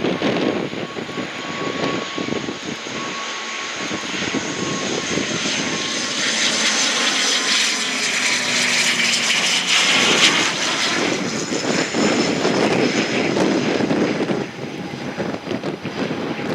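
Airliner's engines passing close, a steady whine that slowly falls in pitch as the sound swells to its loudest about eight to ten seconds in, then eases. Gusty wind buffets the microphone underneath.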